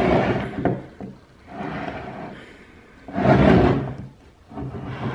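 Chrome steel ratchets being slid and set down on a wooden board: four short scraping rubs about a second apart, the loudest a little past the middle, with a light knock near the start.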